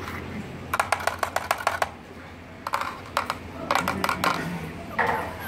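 Quick runs of sharp clicks, several a second, in four short bursts.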